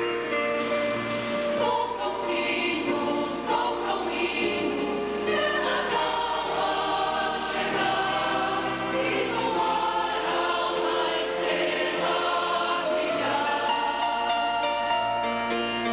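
Mixed choir singing a song in harmony, with held chords that change every second or so.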